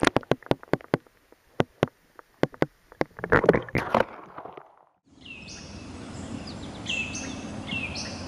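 Heard through an underwater camera: a run of sharp clicks and knocks, then a short burst of water noise about three to four seconds in. After a cut near the five-second mark, outdoor ambience takes over: steady low background noise with repeated short, falling bird calls.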